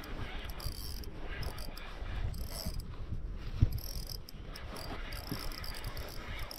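Spinning fishing reel clicking and whirring in short repeated bursts while a hooked fish is played on a bent rod, with a single knock about halfway through.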